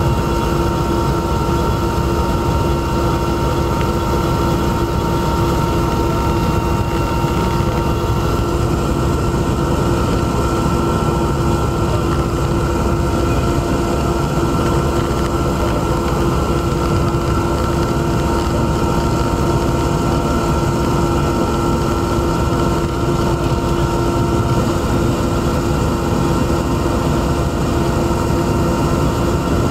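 Aircraft engine noise heard inside the cabin: a steady drone with a few constant whining tones over a low rumble.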